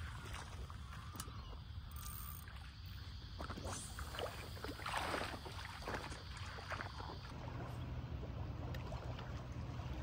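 Water splashing and sloshing in the shallows, busiest a few seconds in, over a steady low rumble.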